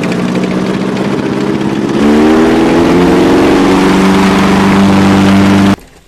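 M4 Sherman tank's engine running, then about two seconds in growing louder and rising in pitch as it revs. The sound cuts off suddenly near the end.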